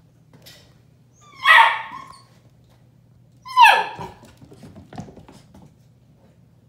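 A puppy barking twice, about two seconds apart, each bark a short high yelp that falls in pitch. A couple of light knocks follow.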